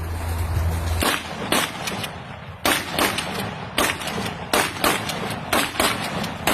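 A string of about ten sharp cracks, irregularly spaced and some in quick pairs. A steady low hum cuts off about a second in.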